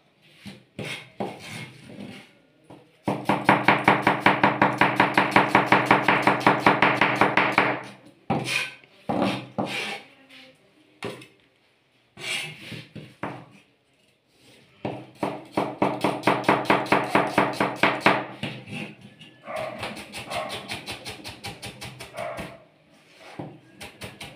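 Large kitchen knife rapidly mincing onion on a plastic cutting board: three runs of fast, even chopping strokes, with single knocks and pauses between them.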